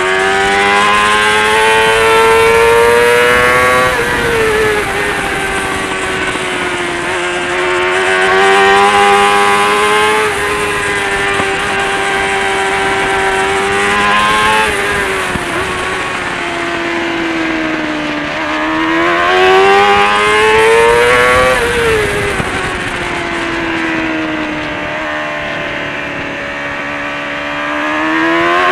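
Kawasaki ZXR400 race bike's inline four-cylinder engine at high revs, heard from onboard: the pitch climbs under acceleration and drops sharply when the throttle is shut, several times, over a steady rush of wind.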